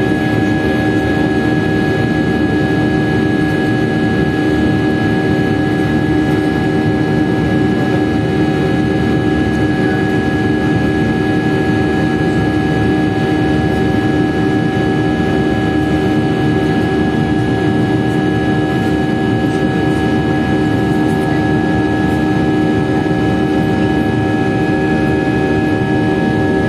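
Airliner turbofan engines running at climb power, heard inside the cabin from a window seat beside the engine: a steady rush with several steady whining tones over it.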